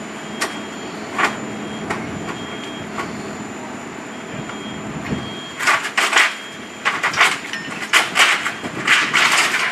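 Firefighting work with hand tools and debris: a few separate sharp knocks over a steady background hum, then from about six seconds in a quick run of clattering, knocking impacts.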